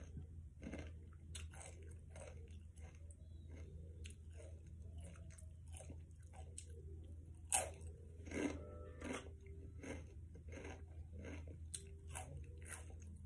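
Someone chewing and crunching snack chips close to the microphone: irregular crunches, a louder one about seven and a half seconds in, over a low steady hum.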